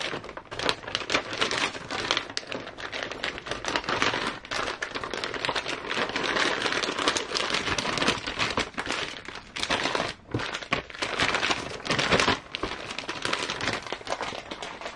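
Plastic parts bags and a clear plastic kit tray crinkling and crackling as they are handled, with irregular sharp clicks and rustles.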